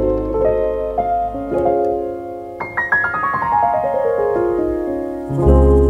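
Background piano music: held notes and chords, a run of notes falling in pitch about three seconds in, and a deep bass note coming in near the end.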